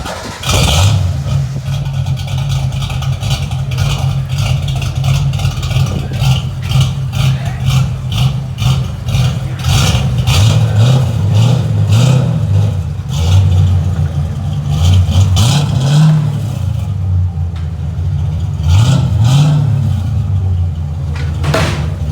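A car engine with an aftermarket cam, running through a freshly done exhaust, idles and is revved up and let back down several times.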